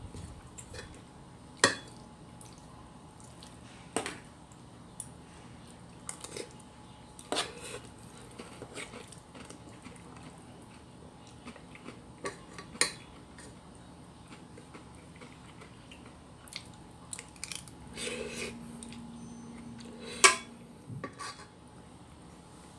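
Cutlery clinking and tapping against dishes during a meal: a scattering of sharp single clinks a few seconds apart, the loudest about two seconds in and near the end.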